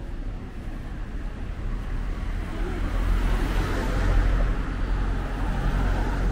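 A motor vehicle passing close by in street traffic, its engine rumble and tyre noise swelling to a peak about four seconds in and then easing off.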